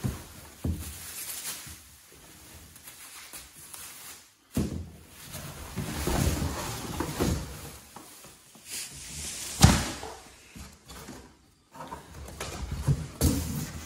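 Plastic bag crinkling and a cardboard box being handled, with irregular rustling and several knocks; the loudest is a sharp thump about two-thirds of the way through.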